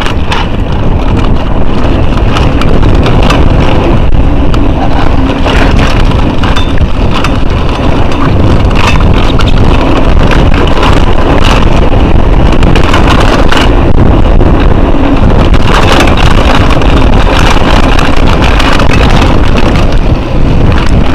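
Wind buffeting an action camera's microphone as a mountain bike is ridden over rough ground, with frequent irregular clatter and knocks from the bike and its tyres on stones.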